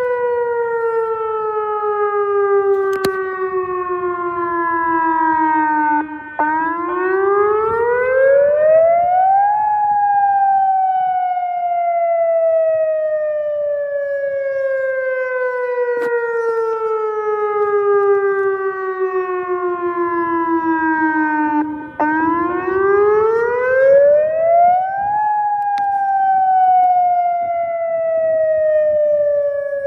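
Older outdoor tornado warning siren sounding a wail during a test: its pitch climbs over about three seconds, then sinks slowly over about twelve, twice.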